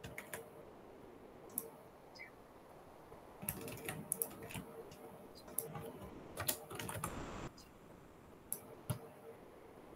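Faint computer keyboard typing: scattered key clicks, a few at first, then a busy run of keystrokes from about three and a half to seven and a half seconds in.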